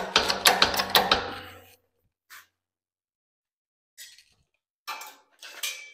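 Long aluminum sheet being bent in a press: about two seconds of rapid metallic clicks and creaks over a low hum, then a few short, quieter knocks and scrapes as the sheet is handled.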